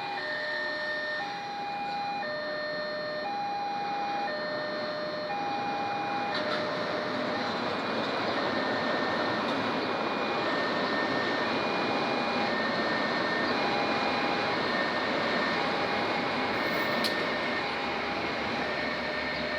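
Electronic level-crossing alarm sounding an alternating two-tone chime, each tone held about a second, as the Kedungsepur train passes; the rumble of the train builds from about six seconds in and partly covers the chime.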